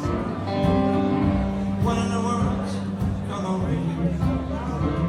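A band playing a country-rock song live, with guitar over bass and a steady beat.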